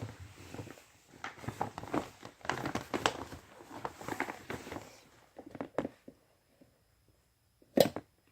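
Irregular rustling, tapping and handling noises as a mailed package is handled, fading to quiet with a few small clicks, then one sharp knock near the end.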